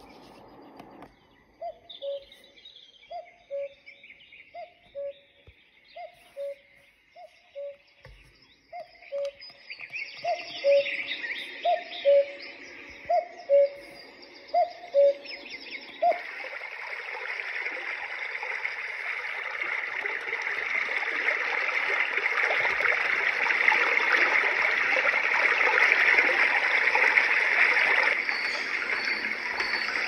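Roffie N600 sound machine's speaker playing a recorded nature track: a falling two-note hoot repeated about once a second, with fainter high bird chirps. About halfway through, a button press switches it to a steady rushing water sound that grows louder.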